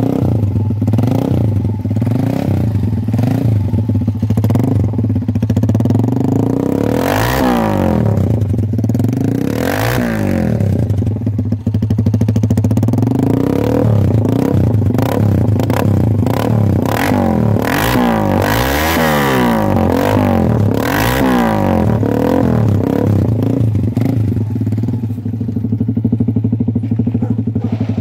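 150cc motorcycle engine running through a Paolucci stage 1 aftermarket exhaust, idling steadily and revved up and back down in quick throttle blips several times.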